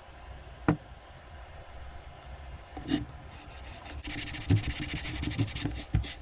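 Hand rubbing on the wooden book rest, a steady scratchy hiss that starts about four seconds in, with a knock under a second in and soft bumps of the wood on the bench.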